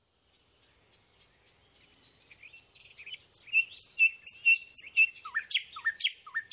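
Birdsong: short, repeated high chirps begin about two seconds in and grow louder, joined near the end by quick falling whistled notes.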